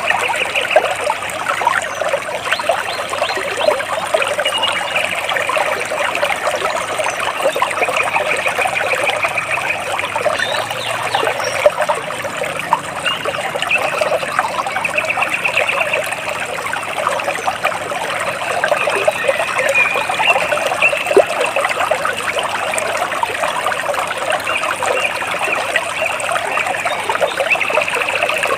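Water splashing and trickling steadily, with birds singing short rapid trills every few seconds over it.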